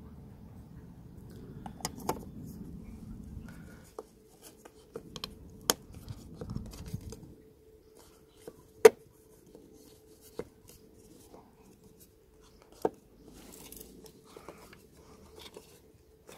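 Sharp plastic clicks and knocks as the rear VW badge of a Volkswagen Golf VI, the pivoting badge that doubles as the tailgate handle, is pressed and worked into its housing, with light scraping between them. The loudest click comes about nine seconds in.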